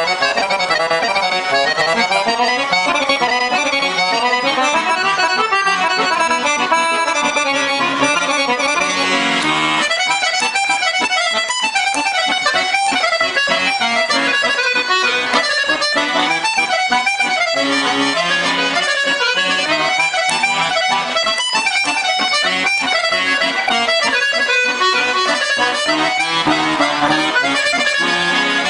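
Weltmeister piano accordion, serviced and tuned by an accordion tuner, played at a lively pace: a fast right-hand melody over a bass-and-chord accompaniment, which turns more clipped and rhythmic about a third of the way in.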